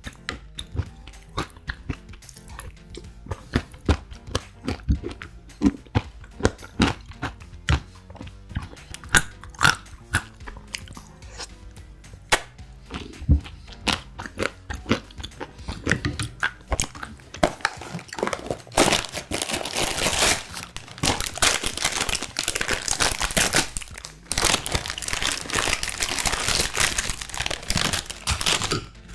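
A plastic spoon clicking and scraping in a glass mug of yogurt, with mouth sounds of eating. From about two-thirds of the way in, a dense steady rustling rattle as chocolate cereal is poured from its packet onto the yogurt.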